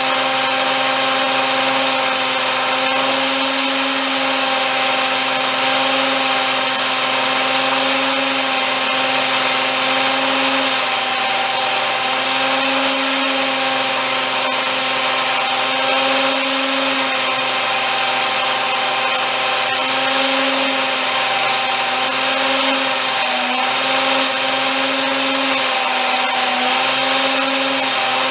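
A handheld power tool running continuously against a workpiece, a steady hum over a strong hiss. Its pitch dips briefly several times, most clearly in the last few seconds.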